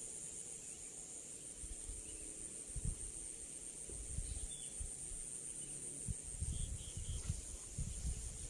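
Steady, high-pitched chorus of insects, with scattered low thumps and knocks from handling close to the microphone.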